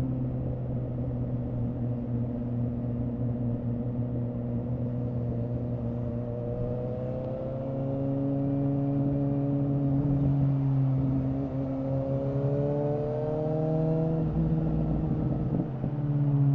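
2017 Suzuki GSX-S750's inline-four engine running through a Yoshimura R11 exhaust with the dB killer removed, under way at moderate revs. The pitch climbs gently twice and drops back suddenly about fourteen seconds in, then starts to rise again.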